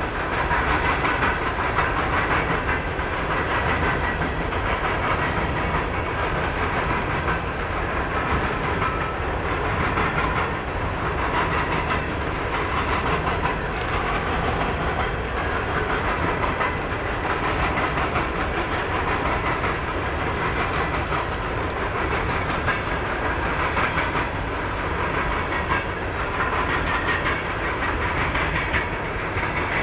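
Freight cars of two passing trains, empty coal hoppers and autoracks, rolling by: a steady rumble and clatter of steel wheels on rail, with a few sharper metallic clinks about two-thirds of the way through.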